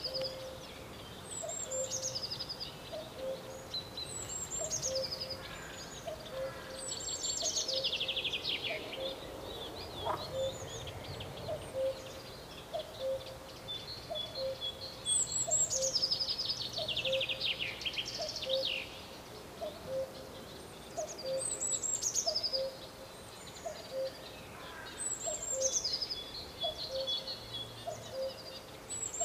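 Common cuckoo calling its two-note 'cu-coo' over and over at an even pace, low and clear. Other songbirds sing louder over it in high, falling trilled phrases every few seconds.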